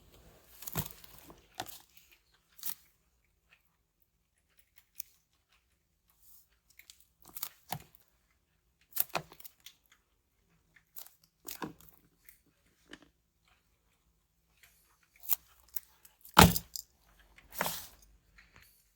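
A smartphone's retail box and packaging being handled and opened by hand: scattered short rustles, scrapes and light taps with quiet gaps between them, and a sharper knock near the end.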